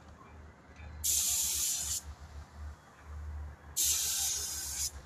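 Two bursts of hissing spray, each about a second long, the second starting a little under two seconds after the first ends.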